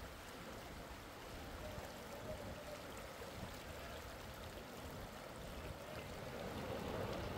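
Floodwater rushing over a road in a steady, even stream, getting a little louder near the end.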